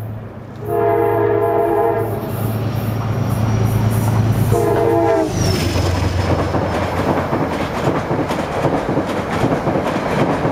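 A Metro-North commuter train sounds its horn twice as it runs through the station, a longer blast and then a shorter one that drops in pitch as the train passes. Then its coaches rush past close by with rumbling and wheel clatter on the rails.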